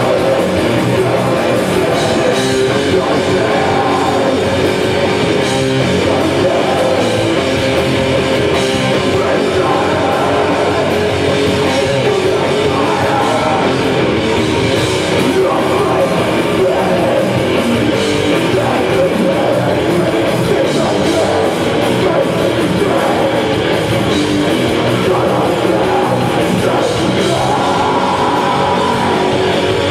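Live heavy metal band playing loud, with distorted electric guitars and a drum kit.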